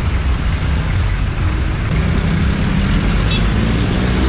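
Wind rushing over the camera microphone and road noise while riding an electric scooter. About two seconds in, a low pitched hum joins and rises in pitch near the end.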